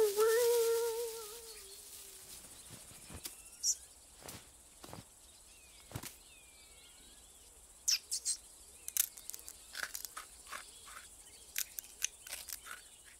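Cartoon sound effects: a drawn-out cat meow that falls in pitch and fades away over the first two seconds. Then faint countryside ambience with a few tiny squeaks and scattered light clicks and taps, busier in the last five seconds.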